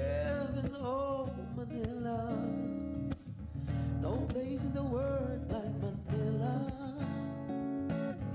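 Background music: a guitar-backed song with a melodic vocal-style line.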